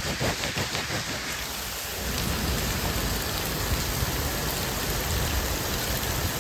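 Heavy rain pouring steadily. In the first second or so there are rubbing and knocking sounds as the wet camera lens is wiped clean.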